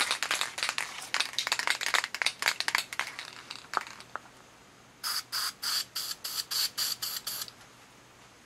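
Aerosol can of flat black spray paint: the mixing ball rattling rapidly as the can is shaken, then, about five seconds in, a quick run of about nine short hisses of paint sprayed into a cap.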